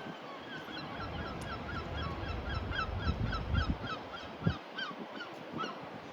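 A large bird calling in a rapid series of short, repeated calls, about three a second, over a low rumble.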